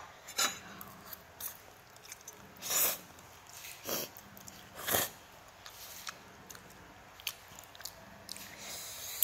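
A child slurping spicy instant noodles off a fork and chewing, with about four short slurps spread through and small clicks in between.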